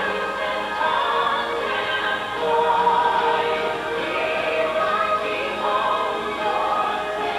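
Music with choral singing: voices holding long sustained notes.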